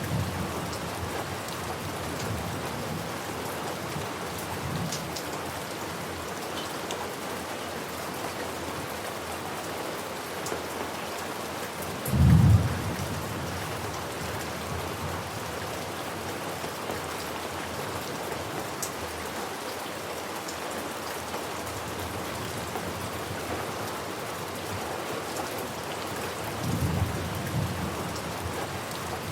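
Steady rain falling, with thunder rumbling: a short, loud, deep clap about twelve seconds in and weaker rumbles near the start and near the end.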